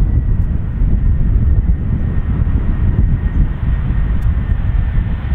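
The four Soloviev D-30KP turbofan engines of an Ilyushin Il-76TD freighter on final approach: a steady low rumble with a thin whine that slowly falls in pitch.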